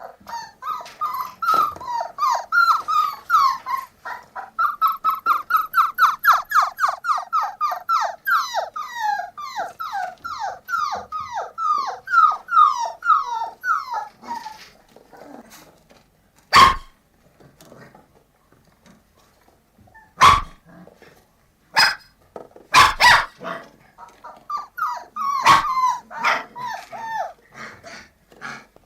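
Puppies yelping: a long rapid series of high, short yelps, about three a second, each falling in pitch. Partway through this gives way to a few loud, sharp single barks spaced a second or more apart, with another brief run of yelps near the end.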